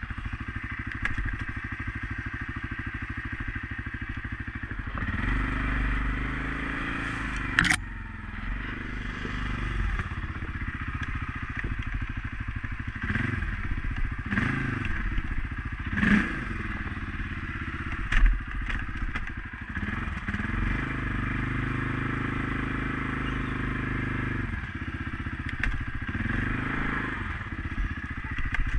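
CFMOTO CForce 500S ATV's single-cylinder engine running and revving up and down on a trail ride, with clatter and knocks from the machine over rough ground. A sharp knock comes about eight seconds in, and louder thumps around sixteen and eighteen seconds.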